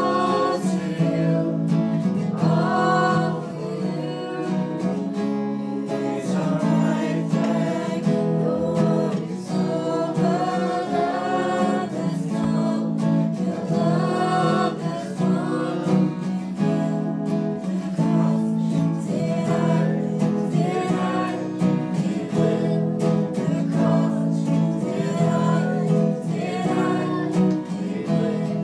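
Live worship song: a woman singing lead over strummed acoustic guitar and electric guitar, with the congregation's voices joining in.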